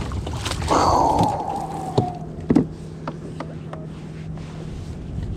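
A falling tone about a second in, then several short hollow knocks and thunks on the plastic kayak, typical of a fish and gear being handled on board.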